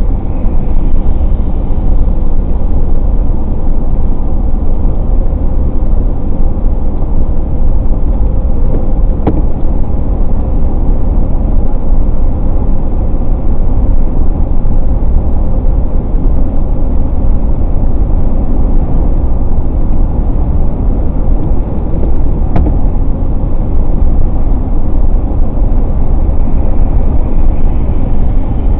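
Steady road and engine rumble heard from inside a car driving on a rain-wet highway, with two faint clicks about 9 and 22 seconds in.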